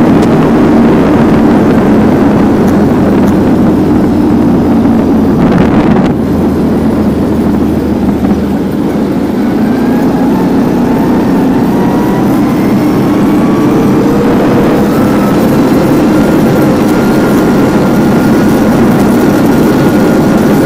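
Quad bike (ATV) engine running while riding. From about halfway through, its pitch climbs slowly as the revs build.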